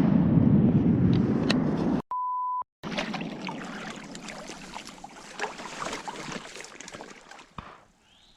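A loud low rumble for about two seconds, cut off by a short, flat bleep tone with dead silence either side. Then comes quieter sloshing of water in flooded timber, with small knocks and clicks.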